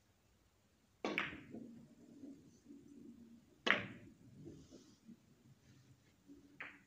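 Three-cushion carom billiards shot. The cue strikes the cue ball about a second in, a sharper, louder ball-on-ball click follows near the middle and a lighter click comes near the end, with balls rolling on the cloth and rebounding off the cushions in between.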